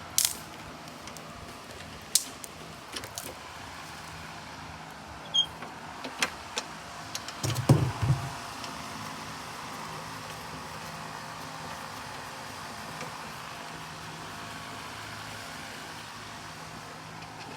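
Scattered clicks and knocks of lawnmower handle parts being fitted and bolted on, with a louder burst of knocking and rattling about seven to eight seconds in, over a steady low hum.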